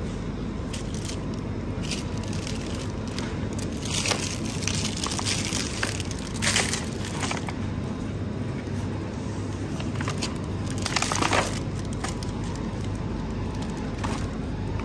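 Plastic shopping basket and the packaged groceries in it rustling and crinkling as it is carried, with louder crackles about four, six and a half and eleven seconds in, over a steady low hum.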